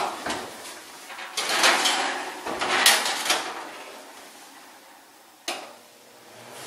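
Kitchen clatter of an oven door and a metal baking tray being handled: a run of knocks and scrapes, with a sharp clack about five and a half seconds in.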